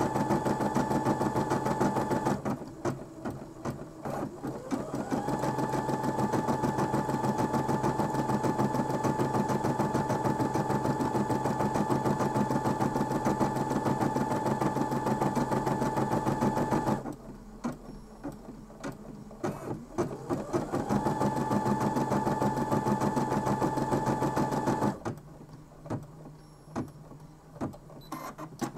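Brother M280D embroidery machine stitching out a design in the hoop, the needle running at full speed with a steady whine. It drops abruptly to slow, separate stitches about 2 s in and again about 17 s in, each time climbing back up to speed with a rising whine. Near the end it slows to single stitches again.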